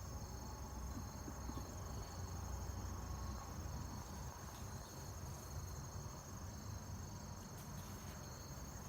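Crickets chirring: a steady, high insect trill that runs on unbroken, over a low rumble.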